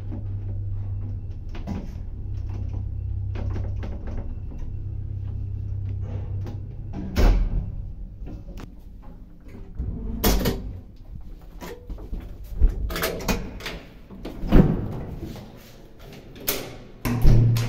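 Old ZUD passenger lift: a steady low hum as the car travels, which stops with a heavy thud about seven seconds in. This is followed by a series of clunks and clicks as the lift's doors are opened.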